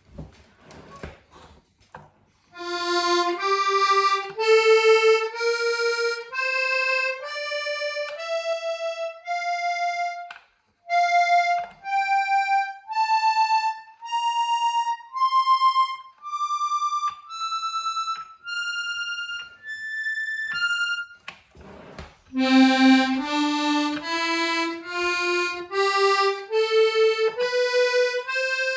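Hohner Corona II diatonic button accordion, its freshly tuned treble reeds played one note at a time in an ascending scale of about one note a second, climbing over two octaves. A few soft clicks come before the first note. A second scale starts lower, about 22 seconds in, and climbs again.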